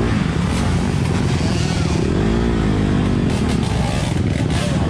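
Dirt bike engines running close by, among them a Honda CRF250RX single-cylinder four-stroke, with one engine revving up and back down about two seconds in.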